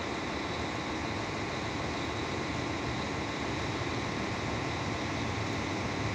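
M62 diesel locomotive, with its two-stroke V12 engine, approaching a train of tank wagons from a distance: a steady low rumble under an even hiss, growing slightly stronger near the end.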